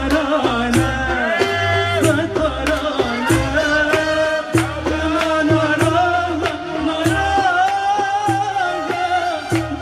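A woman singing an Arabic song live into a handheld microphone, holding long notes with wavering ornaments, over an instrumental accompaniment with a bass line and a steady beat.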